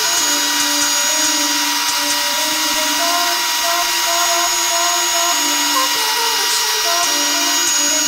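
Revlon One Step brush dryer running steadily: an even, loud blowing hiss with a faint motor whine. On its higher heat setting it blows air only out of the top of the brush head, which the owner suspects may be a fault.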